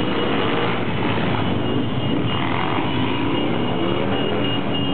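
Many motorcycles, scooters and a quad riding past together in a procession, a dense, steady mix of engines with some riders revving up and down.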